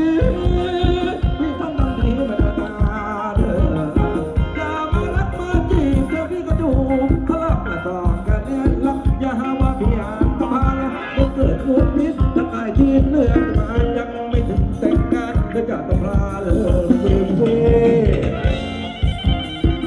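Thai ramwong dance band playing: a steady drum beat under a singing voice and instruments.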